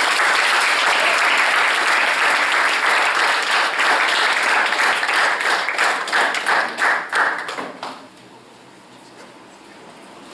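Audience applauding: dense clapping that thins into scattered single claps and stops about eight seconds in.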